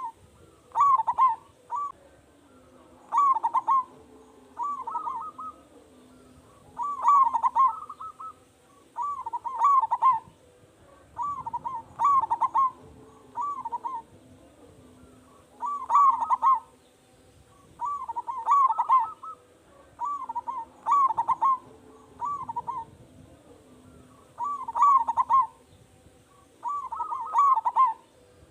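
Zebra dove (perkutut) cooing: short phrases of a few rolling coo notes, each about a second long, repeated with gaps of about a second, over a faint steady low hum. It is a loud-voiced, in-song bird whose call is used as a lure to set other zebra doves calling.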